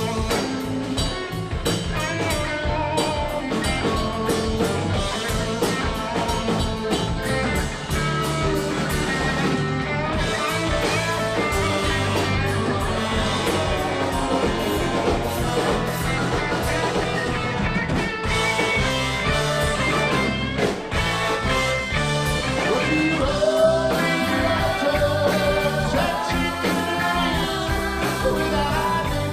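Live rock band playing: drums, bass, electric guitar and keyboards, with a slide trombone taking a solo line midway.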